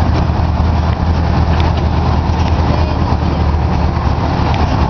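The motor of a small trackless park "train" ride running steadily as it rolls along, a continuous low rumble.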